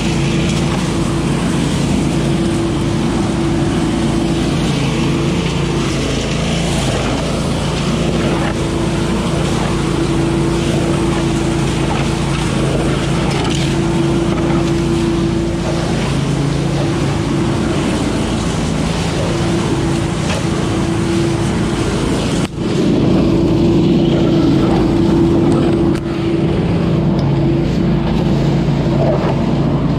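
A 20 hp Billy Goat leaf vacuum running steadily at full speed: an engine and fan drone with the rush of air as leaves are sucked through the intake hose. The sound dips for a moment a little past the middle of the clip, and again shortly after.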